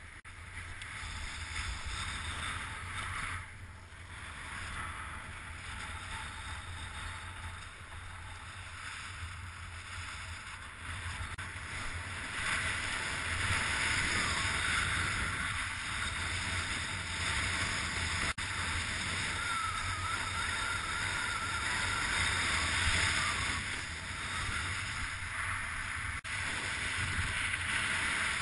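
Wind rushing over the microphone with a steady hiss during a snow-kite ski run, with a deep rumble underneath. It grows louder a little before halfway.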